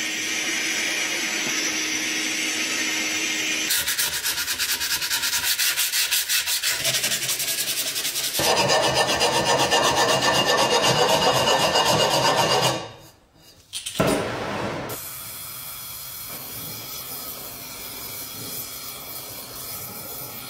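Steady hiss of an abrasive blast gun working on the body of a meat grinder. Then quick scraping strokes for about nine seconds, loudest in their second half, as a hand file dresses the metal rim of the grinder's hopper. After a brief pause, a gas torch hisses steadily as it heats the inside of the hopper for hot bluing.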